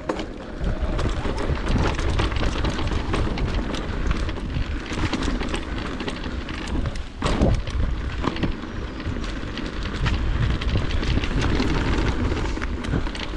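Electric mountain bike riding down a rough trail. Wind rumbles on the action camera's microphone over the crunch of tyres on loose rock and the bike's rattling and clatter, with a harder knock about seven seconds in.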